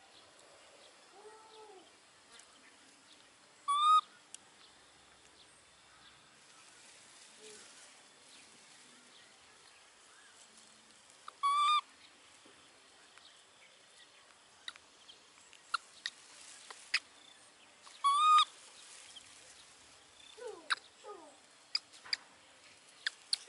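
An animal's short, high call, a single note rising and falling, heard three times several seconds apart, over faint rustling and scattered light ticks.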